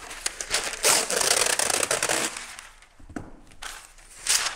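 Parchment paper crinkling and rustling as it is pressed down into a baking sheet, loudest in a long burst about a second in, then lighter crinkles with another short burst near the end.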